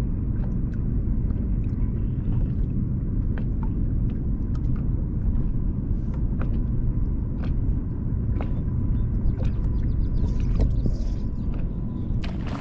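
Steady low rumble of wind buffeting the microphone on open water, with scattered faint light clicks over it.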